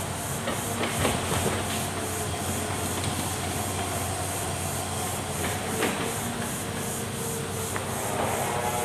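Hitachi Zaxis crawler excavator working: its diesel engine runs steadily under a hiss of hydraulics as the upper body swings and the boom moves, with a few sharp metal knocks along the way.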